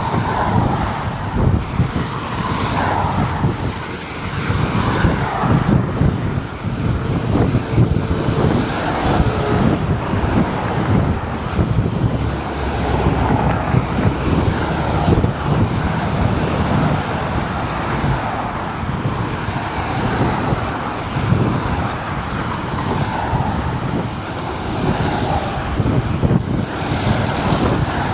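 Steady highway traffic: vehicles passing one after another, with a continuous low rumble and a swell of tyre and engine noise every second or two.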